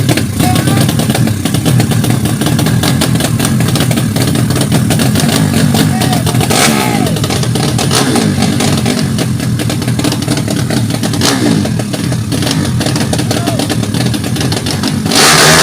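Small motorcycle engines running and being revved, with voices mixed in. A sudden, much louder engine surge comes near the end.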